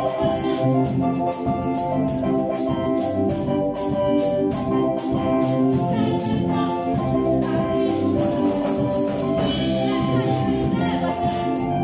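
A choir singing a praise song over a band, with drums and tambourine keeping a steady beat.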